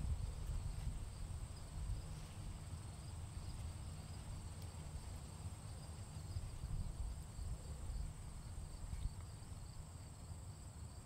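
Insects chirping: a steady high trill and a repeated pulsing chirp, over a louder uneven low rumble.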